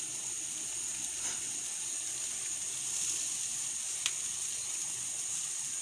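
Steady hissing sizzle of satay skewers grilling over charcoal while an electric fan blows down onto the coals, with a sharp crackle about a second in and another about four seconds in.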